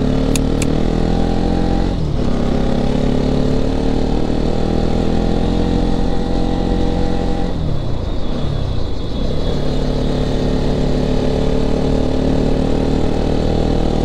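Motorcycle engine under way, its note climbing as it pulls. The pitch drops and climbs again twice, about two seconds in and more slowly around eight seconds in.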